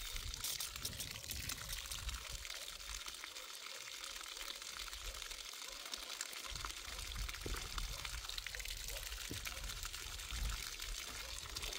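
Water running down a small recirculating sluice box and pouring off its end in a steady stream.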